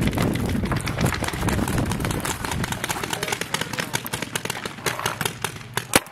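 Rustling and pounding footsteps of a paintball player running and dropping behind an inflatable bunker. Through it come rapid sharp pops of paintball markers firing, clearer in the second half, with one loud pop near the end.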